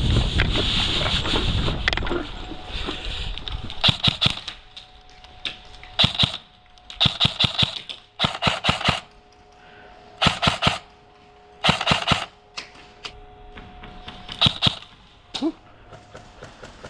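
Airsoft guns firing about seven short bursts of rapid shots, a second or two apart. The bursts follow a loud rushing noise in the first two seconds.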